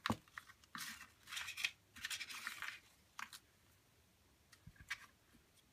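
Hands rummaging through a plastic tray of scrapbooking embellishments: a sharp click at the start, then rustling and light clatter of small packaged pieces, with a few soft clicks near the end.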